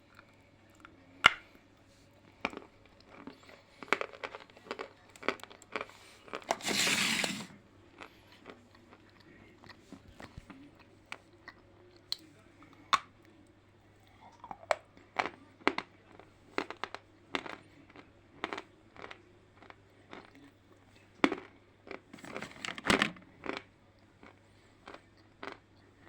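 Lumps of Stary Oskol chalk being bitten and chewed close to the microphone: sharp crunches at irregular intervals, with a longer rustling crunch about seven seconds in and a quick run of crunches near the end.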